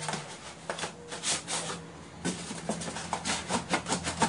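A styrofoam packing block being handled and shifted in the hands, giving a quick run of short rubbing and scraping noises, several a second.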